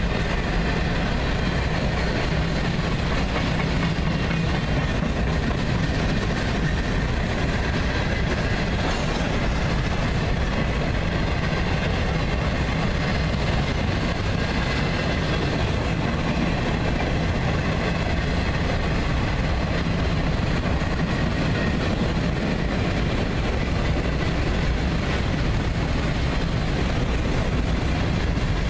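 Boxcars of a CSX manifest freight train rolling past close by: a steady rumble of steel wheels on the rails.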